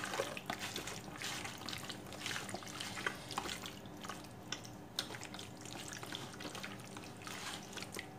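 Hands kneading and turning raw chicken pieces with salt and spice in a plastic tub: irregular wet squishes and slaps of meat.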